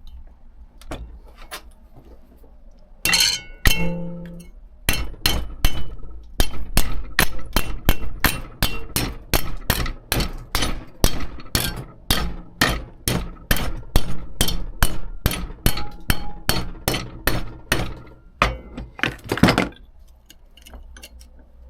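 Hammer beating a bend into a small sheet-steel repair panel held in a vise: a few sharp metallic strikes, then a steady run of about three blows a second that stops a couple of seconds before the end.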